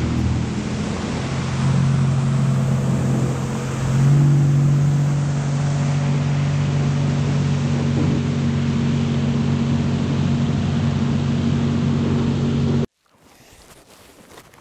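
Sea-Doo jet ski engine running at speed on open water, a steady drone over the hiss of spray. It rises in pitch and level about four seconds in, then cuts off suddenly near the end, leaving faint crackles.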